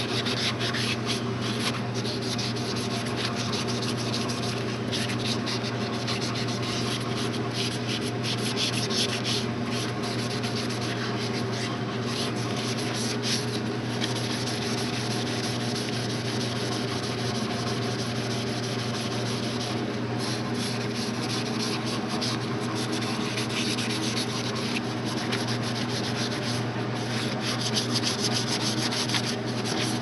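Green scouring-pad side of a kitchen sponge scrubbed rapidly back and forth over a brass door handle and backplate, scouring off tarnish: a fast, scratchy rubbing that goes on without a break, over a steady low hum.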